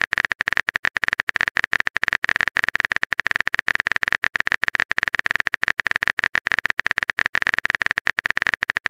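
Keyboard typing sound effect of a chat-message app: a fast, even stream of short clicks, several a second, as a message is typed out.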